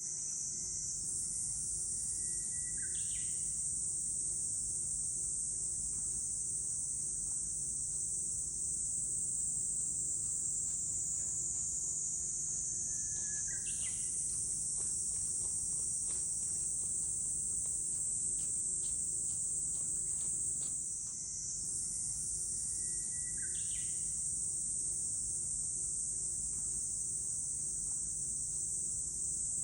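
Japanese bush warbler singing its "hoo-hokekyo" song three times, about ten seconds apart: a held whistle that breaks into a quick higher flourish. Under it runs a steady, high-pitched chorus of insects, which is the loudest sound.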